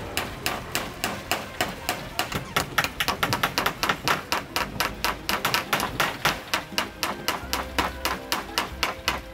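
A hammer driving nails into a wooden frame through wire mesh, with quick, evenly spaced strikes.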